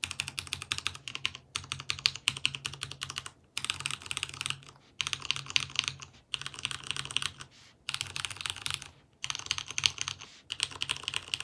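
Typing on a Vortex Poker 3 mechanical keyboard with Cherry MX Brown switches that have been spray-lubricated with Super Lube to quiet the spring noise. The keystrokes come in quick runs of about a second each, broken by short pauses.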